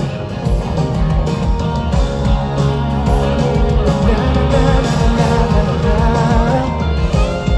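Live rock band music from the stage: electric guitar over bass and drums, with a wavering sung or guitar melody line coming in near the end.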